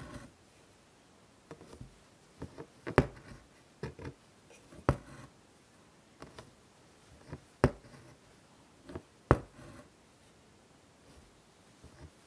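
Embroidery needle piercing fabric stretched taut in a hoop, giving a sharp tap about every two seconds, with smaller ticks and the soft rasp of thread drawn through the cloth in between.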